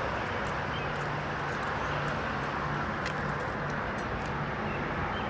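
Steady outdoor background noise with a faint low hum that comes and goes.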